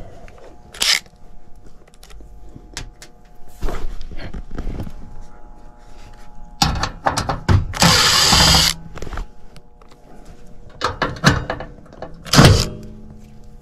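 Handling knocks and clatter on a sheet-metal furnace cabinet, with a Makita cordless impact driver running in one burst of about a second, about eight seconds in. A loud knock comes near the end, and a faint steady hum sits underneath throughout.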